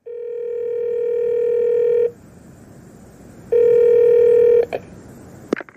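A telephone ringing with a steady electronic tone: one ring about two seconds long, a pause, then a second ring cut short after about a second. Near the end come a few clicks as the phone is picked up.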